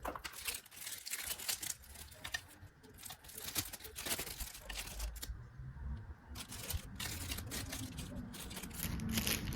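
Hands fiddling with and trying to open a sunglasses case and its packaging: scattered soft clicks, taps and rustles.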